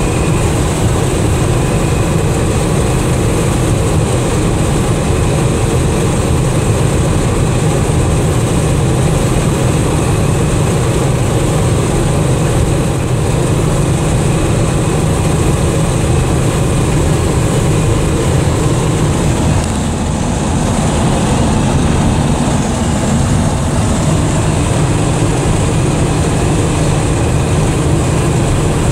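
Inside the cab of a 1979 Dodge D300 pickup driving at a steady road speed: its 360 V8 with a four-barrel carburettor runs steadily under the road and wind noise. About twenty seconds in, the sound dips briefly and changes slightly.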